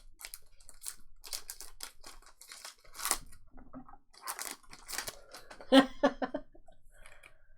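Foil trading-card pack wrappers crinkling and tearing, with cards being handled and shuffled: a string of short, crisp rustles and clicks.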